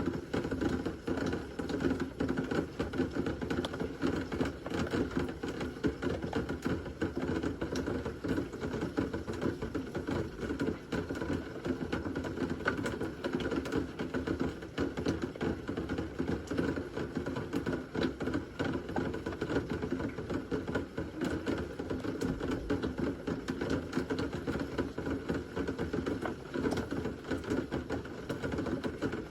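Steady heavy rain, a dense, even patter of drops hitting a hard surface.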